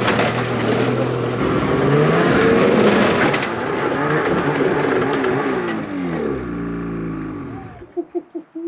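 Snowmobile engine revving up and down as the sled is ridden up a ramp onto a truck's sled deck, then shut off about eight seconds in.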